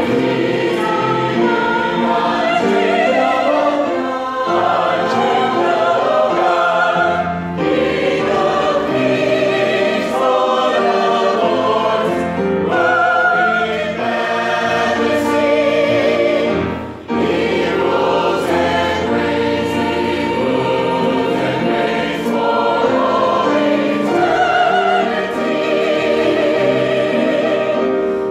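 A choir singing a gospel hymn, voices holding notes with vibrato, with a short break between phrases about 17 seconds in.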